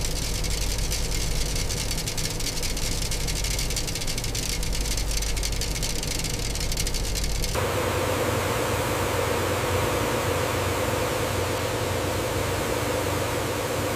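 Small grains pouring into a container, a dense hissing rattle of fine ticks. About halfway through it changes abruptly to a steady machine hum with hiss.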